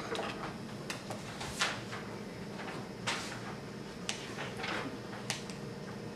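Scattered small clicks, scrapes and rustles of craft work at a table, with paper, pens and small supplies being handled, over a steady low room hum.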